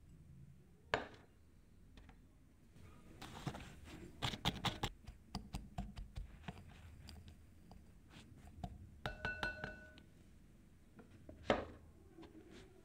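Wire whisk stirring dry flour, almond powder and sugar in a glass bowl, its wires ticking and scraping against the glass in quick strokes. About nine seconds in, the glass rings briefly, and near the end there is one sharp clink as the whisk is stood in a glass cup.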